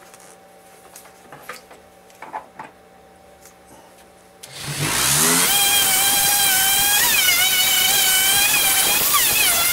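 Electric random-orbit sander sanding excess dried black paint off a wooden cutout. A few light handling clicks come first; about halfway through the motor spins up, rising in pitch, then runs loud and steady with a wavering whine.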